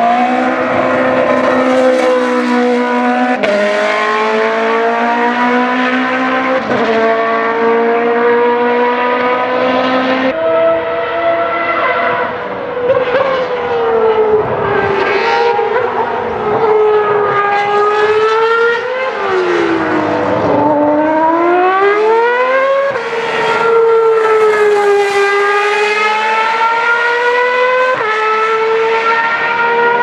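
Dallara IndyCar IR-05 open-wheel racing car's engine running hard on track, its pitch climbing and dropping with the revs and gear changes across several short passes cut together. About two-thirds of the way through, the note falls low and then climbs steeply again.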